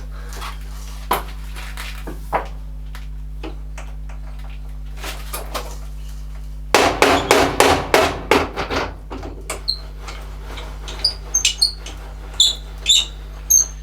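Metal tools and parts being handled in a workshop, knocking and clinking against each other and the bench. There is a fast run of loud knocks about seven seconds in, then lighter ringing metal clinks, over a steady low hum.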